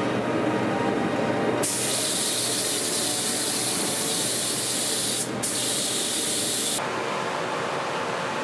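A loud spraying hiss that starts suddenly about a second and a half in, breaks off for a moment, then resumes and stops about a second and a half before the end, over a steady lower machine noise.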